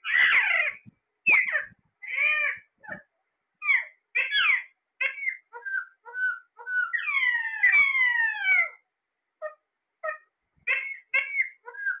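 Caged Alexandrine parakeets calling: a string of short squawks and whistled notes, many sliding down in pitch, with a longer run of overlapping falling calls about seven to nine seconds in.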